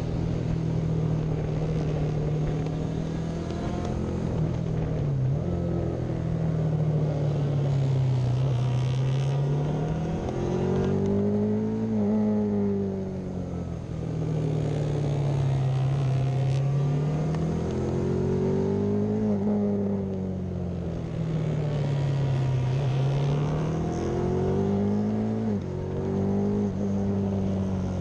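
Onboard sound of a classic racing motorcycle engine at speed on a circuit. Its pitch climbs under throttle and falls back as it slows for each corner, several times over, with a steady rush of air noise underneath.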